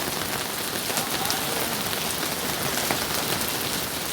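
Heavy rain mixed with hail, a steady hiss of water falling, with a few sharp ticks of hailstones striking.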